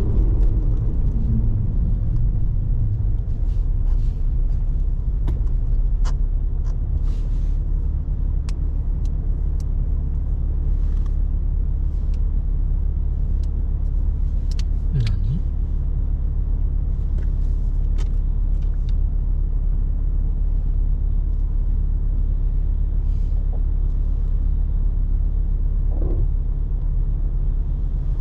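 Porsche 911 Carrera 4S (996) flat-six engine running with a steady low rumble, its pitch dropping over the first second or two and then holding even. Faint scattered ticks sound over it.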